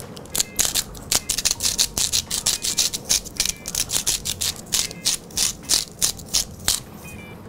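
Hand-twisted seasoning mill grinding over cubed butternut squash: runs of rapid, gritty ratcheting clicks as the mill is twisted back and forth.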